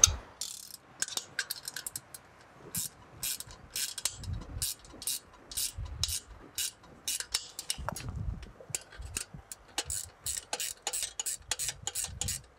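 Ratchet wrench clicking in short, irregular runs of sharp clicks as nuts are tightened down onto stainless-steel mounting frames on pipe straps.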